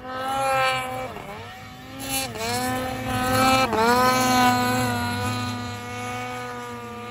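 Ski-Doo 850 Turbo snowmobile's two-stroke engine breathing through an RPM chambered titanium muffler, revving while riding. The engine note dips and climbs back three times, then holds steady and fades near the end.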